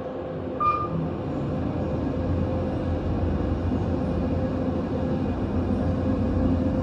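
KONE glass elevator car travelling upward: a steady running hum over a low rumble that builds a little as the car rises. A short beep sounds about half a second in.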